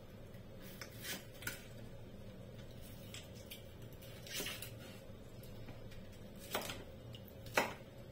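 Kitchen knife slicing a green bell pepper on a plastic cutting board: a few scattered knocks of the blade meeting the board, the loudest about six and a half and seven and a half seconds in, over a faint steady hum.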